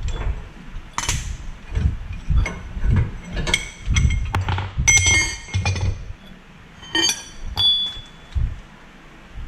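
Metal tools and steel parts clinking against each other as they are handled: scattered ringing clinks and dull knocks, a dense cluster of clinks in the middle and a couple more near the end, the last ringing briefly.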